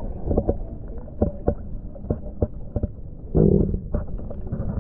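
Muffled underwater sound picked up by an action camera held below a lake's surface: a low rumble of water moving, with scattered clicks and knocks against the housing and a louder whoosh about three and a half seconds in.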